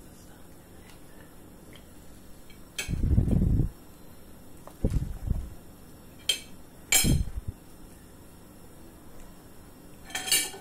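A few dull knocks and short sharp clinks of kitchenware on a cooking pot as salmon heads are put into simmering fish pepper soup, the loudest knock about three seconds in.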